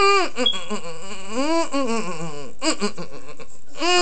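A man's voice making high, mock crying wails: several drawn-out cries that slide up and down in pitch, with short breaks between them.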